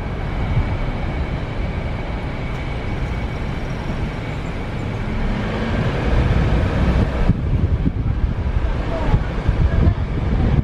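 Road and wind noise from a car driving along a street: a steady low rumble that grows a little louder about six seconds in.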